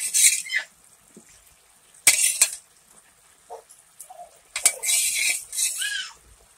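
Cooking spatula knocking and clinking against a frying pan: two sharp knocks about two seconds in. A longer, high hissing clatter follows near the end.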